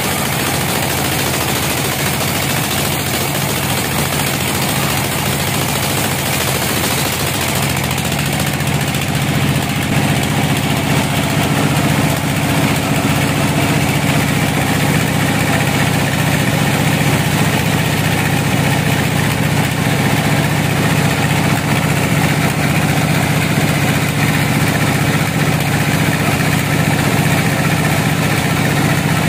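Horizontal bandsaw mill running steadily as its blade rips lengthwise through a log, a constant machine drone that grows a little louder and deeper about eight to ten seconds in.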